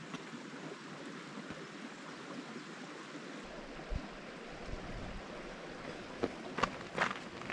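Steady rush of running water. Footsteps start near the end, a step about every half second.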